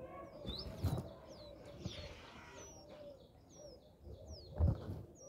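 Indian robins at the nest giving a run of short, high, falling chirps, repeated many times. Two soft thumps come about a second in and again near the end.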